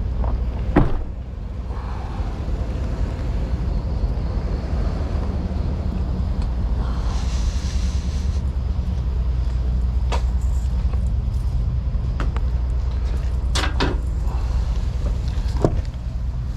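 A truck engine idling steadily, with a few sharp knocks and clicks, the loudest about a second in, and a short hiss about seven seconds in.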